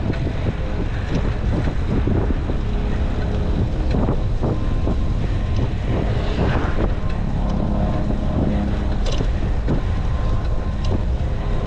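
Wind buffeting the microphone of a camera on a moving Citi Bike, a steady low rumble, with a few faint clicks on top.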